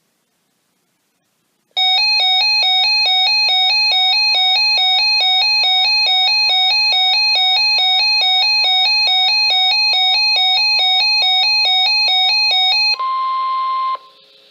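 Electronic emergency alert tone: a loud, buzzy two-pitch warble stepping high and low several times a second for about eleven seconds. It is followed by a steady single beep lasting about a second, then faint radio hiss.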